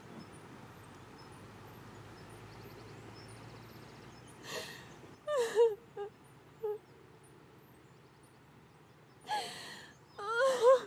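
A woman crying: after about four seconds of near quiet, breathy sobs and gasps with short wavering whimpers come in bursts, growing louder with rising, quavering cries near the end.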